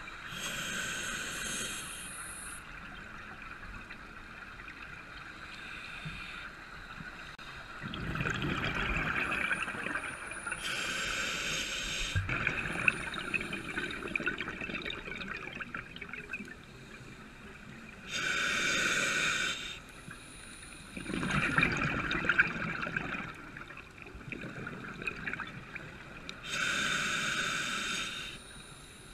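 Scuba diver's regulator underwater: slow breathing, with four hissing inhales through the demand valve and bubbling exhales between them.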